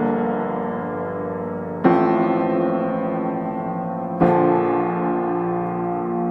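Background piano music: slow sustained chords, a new one struck about two seconds in and another about four seconds in, each left to ring and fade.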